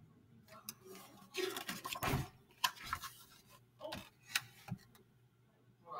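Paper rustling and light clicks as the pages of a picture book are turned and handled, loudest about two seconds in.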